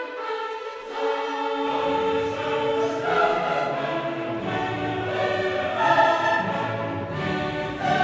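Background music: choral singing with orchestra, in long held notes. A deeper bass part comes in under it about a second and a half in.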